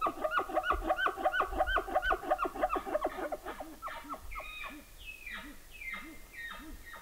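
Bull elk grunting in a rapid run of chuckles, several a second, that slows and fades after about three seconds.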